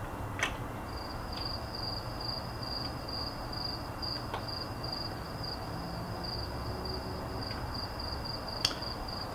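Two clicks of the QNAP TS-453A's front power button, pressed about eight seconds apart, with the unit failing to start because its external power brick is not plugged in. Between them runs a steady high-pitched chirping trill at one pitch, starting about a second in.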